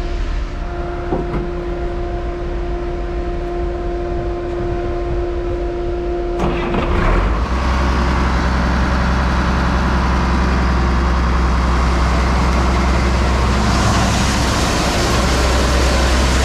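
Heavy farm machinery engine running steadily with a constant whine over it. About six and a half seconds in, the sound changes abruptly to a louder, deeper engine noise.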